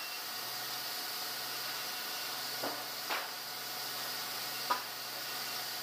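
Steady hum and hiss of sawmill machinery running, with three short knocks of wood or metal, two about halfway through and one near the end.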